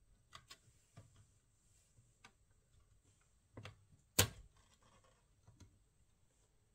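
Scattered small clicks and taps from laptop parts and tools being handled, with one louder knock about four seconds in.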